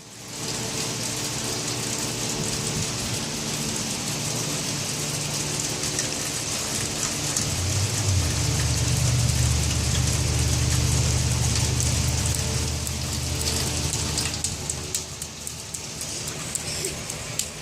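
Steady rain falling, with a low hum that swells in about halfway through and fades away a few seconds later.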